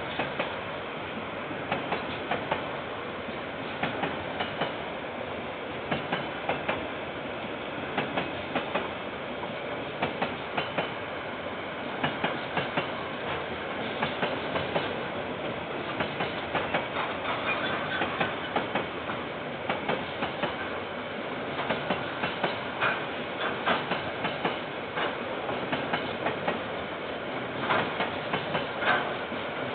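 Freight train's container wagons rolling past, the wheels clacking over rail joints in a steady run of sharp clicks, often in pairs, over a continuous rumble, picked up by a security camera's microphone.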